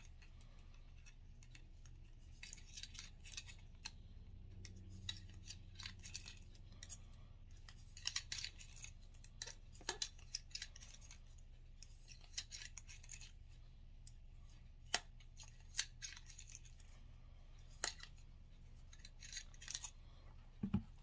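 Cleaning rod with two cloth patches being worked back and forth through a Walther CCP pistol's barrel to swab out leftover residue. It makes faint scraping rubs, with scattered light clicks and taps of the rod and hands against the pistol, over a steady low hum.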